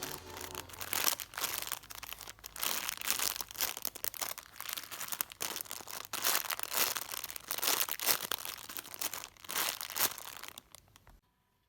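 Crinkly wrapping being squeezed and handled, in irregular bursts of crackling and crunching that stop abruptly near the end.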